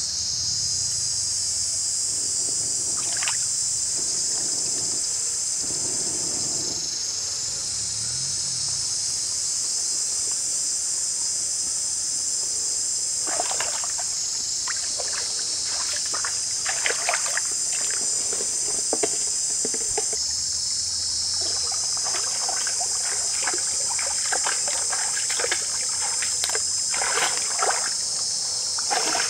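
A steady, high-pitched chorus of insects over a shallow stream. From about halfway through come scattered splashes and knocks from someone wading and handling things in the water.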